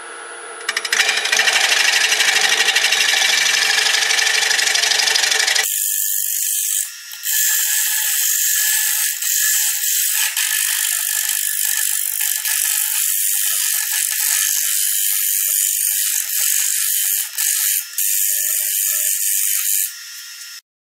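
A wood lathe spinning a segmented walnut-and-resin bowl while a round cutter scrapes its inside, a loud continuous rasping cut with a rapid even pulse. About six seconds in it turns thinner and higher, with a few brief dips. It stops abruptly just before the end.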